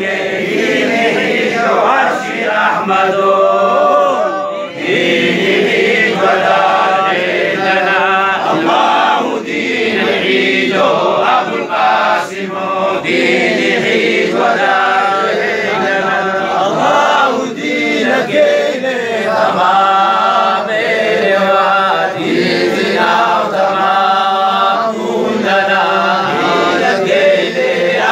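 A group of men chanting a Harari zikri together, a Sufi devotional chant from Ethiopia, their voices carrying on in repeated phrases.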